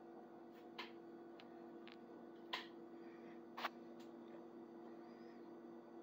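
Quiet room tone: a steady low electrical hum with about six faint, sharp ticks, the two loudest about two and a half and three and a half seconds in. No thunder is heard.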